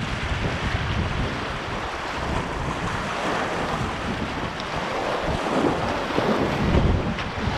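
Whitewater rushing and splashing against a kayak's hull as it is paddled through a rapid, with wind buffeting the camera microphone.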